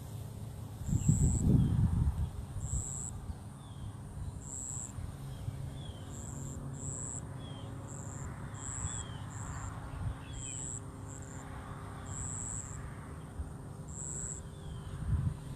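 Early-morning outdoor wildlife ambience: a short, high note repeats about once a second, and faint short falling chirps from birds sound between them. A brief loud low rumble comes about a second in.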